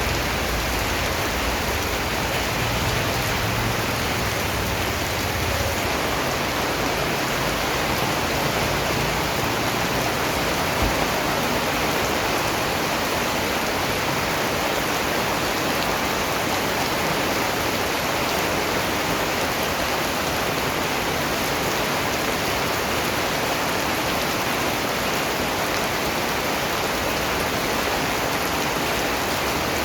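Steady rainfall: an even, dense hiss of drops, with a faint low rumble underneath for the first six seconds or so.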